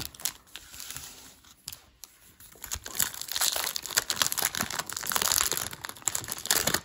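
1993 Topps baseball card packs being handled: a few light knocks and rustles as packs are lifted out of the box and stacked, then from about three seconds in a dense crinkling of a pack wrapper worked in the hands as it is opened.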